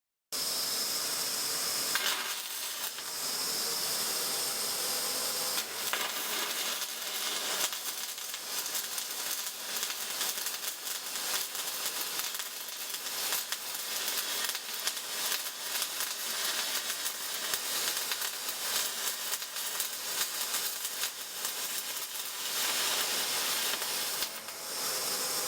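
MAG welding arc burning steadily with a dense crackling hiss. It starts abruptly and cuts off sharply near the end when the arc is broken.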